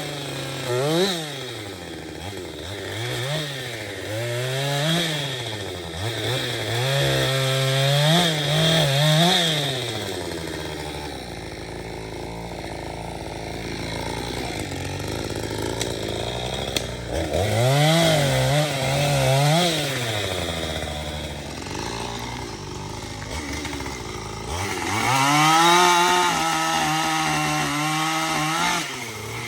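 Chainsaw engine revving up and down in repeated throttle bursts, settling to a lower, steadier run for several seconds midway, then held at high revs near the end.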